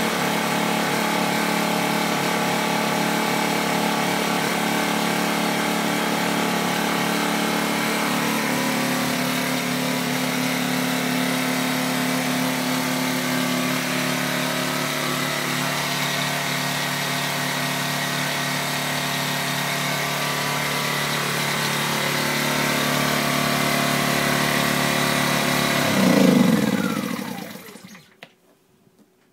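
Sabo 1200i digital inverter generator's engine running steadily. Near the end it is shut off: a brief surge, then the engine winds down with a falling pitch and stops.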